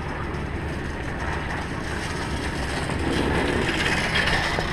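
Rotax Max kart rolling slowly on tarmac, a steady noisy rumble that grows louder about three seconds in as the kart turns.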